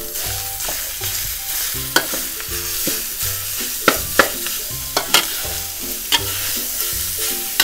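Minced pork sizzling in hot oil in a steel wok with garlic and chillies, with a steady frying hiss. A metal wok spatula scrapes through the meat and clacks sharply against the wok several times.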